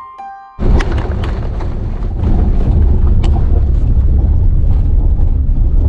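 Car driving, heard from inside the cabin: a loud, steady low rumble of road and engine noise with a few sharp knocks, starting suddenly about half a second in as a few chiming music notes end.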